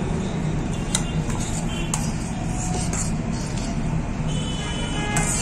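Metal spoon clinking against a stainless steel bowl as salad is scooped onto a plate: a few light clicks, about a second apart, over a steady low hum.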